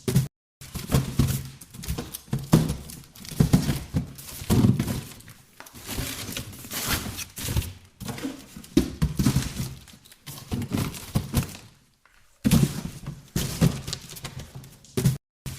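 Cardboard boxes being handled: shifted, lifted and set down in irregular thunks, knocks and scuffs, broken by a few short moments of dead silence.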